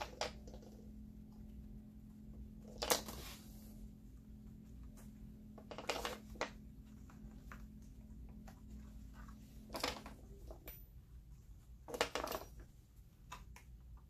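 Plastic spring clips clicking and clacking against each other and the wooden tabletop as they are handled and clamped onto layers of leather: a handful of sharp clicks a few seconds apart, the loudest about three seconds in, with lighter taps between.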